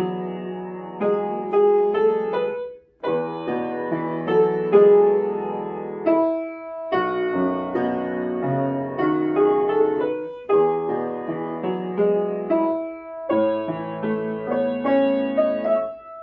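Instrumental background music, played in phrases of three to four seconds that each end in a brief pause.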